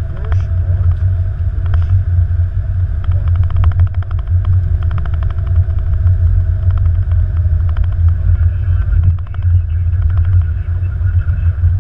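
Steady low rumble inside an Airbus A330-200 cockpit as the airliner rolls along the runway after landing.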